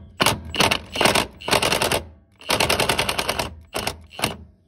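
Cordless impact wrench hammering in about eight short bursts of rapid rattling, working the cartridge oil filter housing cap loose through a cap-wrench adapter.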